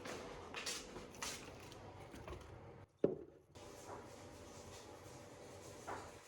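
Light kitchen clatter while cooking: scattered clicks and knocks of utensils and cookware over a faint steady hum, with one sharp knock about three seconds in.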